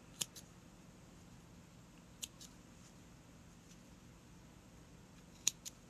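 Small scissors snipping off woven-in yarn tails: three quick double clicks about two to three seconds apart, over faint room tone.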